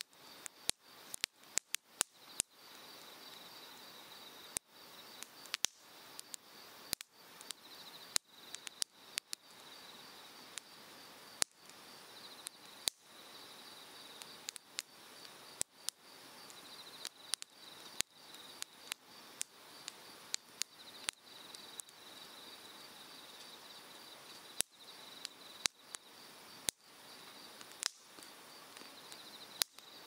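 Cedar firewood burning in an open fire pit, crackling with frequent sharp pops at irregular intervals. Behind it runs the steady rush of a mountain stream and a high, pulsing insect chirp.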